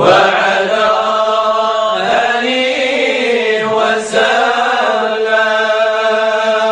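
Arabic Sufi devotional hymn (qasida) chanted with long drawn-out held notes over a steady low drone.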